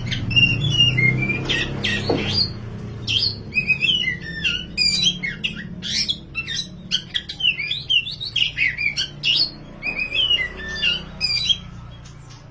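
Oriental magpie-robin (kacer) singing a long, fast run of varied whistles and chattering phrases, stopping about a second before the end, over a steady low hum.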